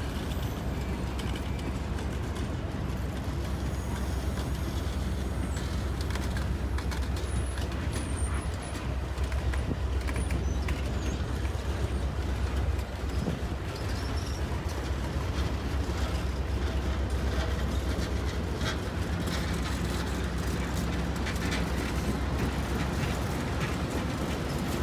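Alaska Railroad train rolling past, a steady low rumble with faint clicks scattered through it.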